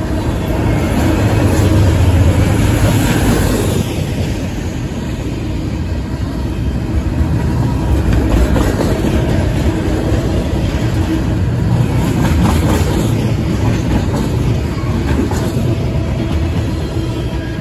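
Double-stack intermodal well cars rolling past: a steady rumble of steel wheels on rail with clattering, and a few sharper clanks about two-thirds of the way through.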